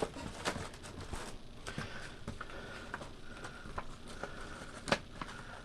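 Light handling noise of paper and packaging: scattered soft clicks and rustles, with one sharper click about five seconds in.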